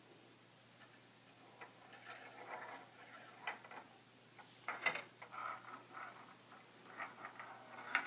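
Small steel ball rolling and clicking along the plastic tracks inside a Perplexus Epic sphere maze as it is tilted. It makes short rattling rolls and scattered sharp ticks, with the loudest click a little past the middle.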